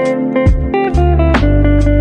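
Background music: plucked guitar over a deep bass line, with notes struck about every half second.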